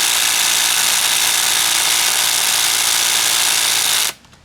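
Ridgid cordless impact wrench hammering continuously on speed 2 against a lug nut torqued to 100 foot-pounds, a steady loud rattle that stops abruptly about four seconds in.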